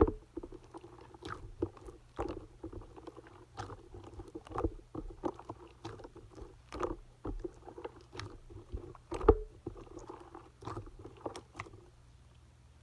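Clay-mixed slime being squeezed and pressed by hand: wet squishing with irregular sharp pops and clicks, the loudest pop about nine seconds in. It stops near the end.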